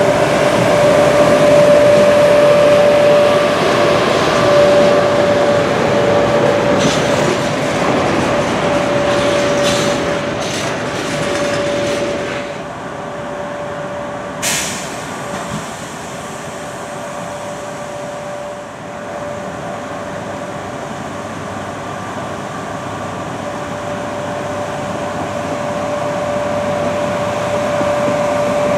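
VR Sr1 electric locomotive hauling a freight train past close by, wheels and wagons rumbling under a steady hum from the locomotive. After an abrupt drop in loudness comes a brief sharp hiss about two-thirds of the way through the first half. The train then draws nearer, with its hum and rumble slowly growing louder.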